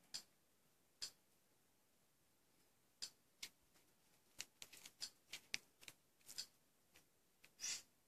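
Faint plastic clicks of Samsung TV remote-control buttons being pressed: a few single presses about a second apart, then a quicker irregular run of presses, and a slightly longer click near the end.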